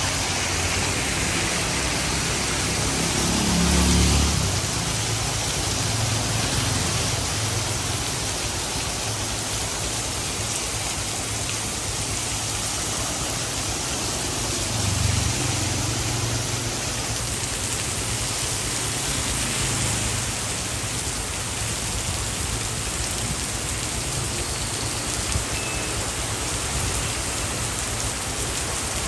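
Steady rain falling on a city street, with the low rumble of a vehicle passing on the wet road about four seconds in and again around fifteen seconds.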